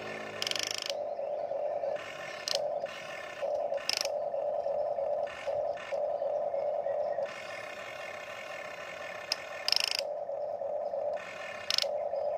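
Huina remote-control excavator's electric motors and gearboxes whining in short stop-start runs as the boom and bucket move, with a few brief louder clatters.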